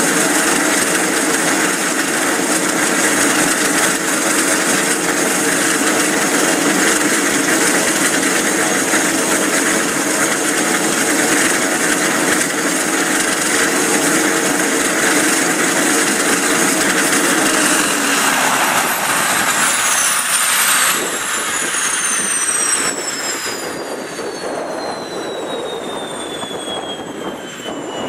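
Piper PA-46-500TP Meridian's Pratt & Whitney PT6A turboprop running steadily, then shut down about two-thirds of the way through. The propeller's low hum fades out and the turbine's high whine falls steadily in pitch as it spools down.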